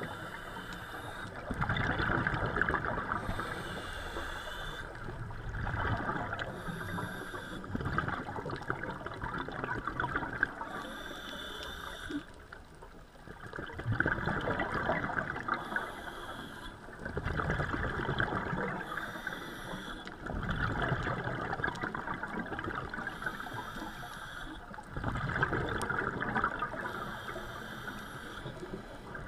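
Scuba diver breathing through a regulator, heard through an underwater camera housing: a burst of bubbling exhaust every three to four seconds, alternating with a short hiss on each inhale.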